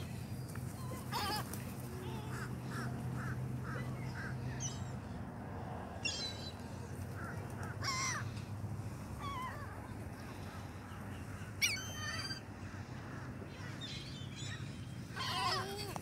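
Ring-billed gulls calling: scattered harsh, wavering cries, with a quick run of short notes a few seconds in and the loudest calls near the end.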